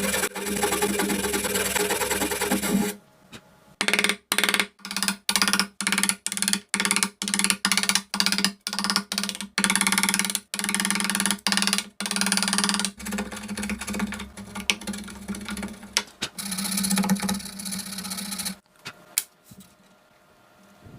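Wood being worked with a tool: a steady run, then a string of short strokes about two a second, then a steadier, quieter run that dies down to a few clicks near the end.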